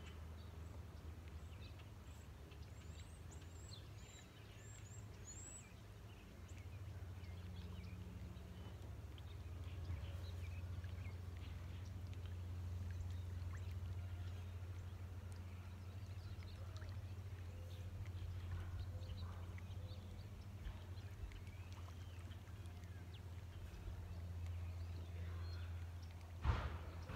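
Bass boat's electric trolling motor humming low and steady, louder from about seven seconds in. A few faint high bird chirps come a few seconds in, and one sharp knock sounds near the end.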